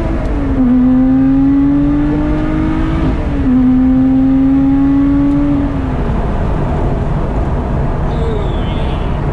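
Lotus Exige's supercharged V6 under hard acceleration, heard from inside the cabin: the engine note climbs, drops with a quick upshift about half a second in, climbs again and shifts once more around three seconds in. It holds for a couple of seconds, then falls away as the throttle is lifted about six seconds in, leaving steady road and tyre noise.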